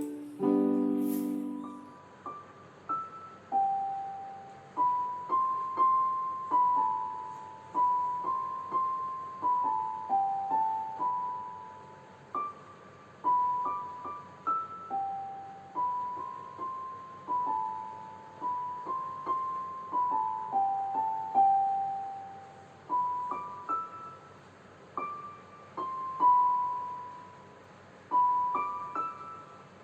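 Background music: a slow keyboard melody played one note at a time, each note struck and fading away. A low chord rings out and dies away in the first couple of seconds.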